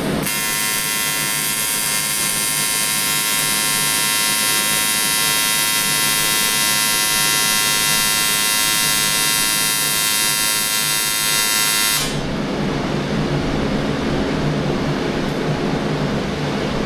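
AC TIG welding arc on 1/8-inch aluminum, a steady high-pitched buzzing hiss that starts just after the beginning, runs for about twelve seconds and cuts off abruptly; the AC frequency is set to 110 and no filler rod is fed. A low steady hum runs under it and carries on after the arc stops.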